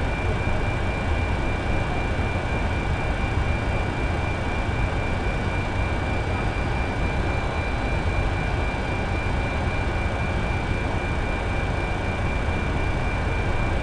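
Steady cockpit noise on a Boeing 747's flight deck: a constant low rumble with a thin, unchanging high whine above it.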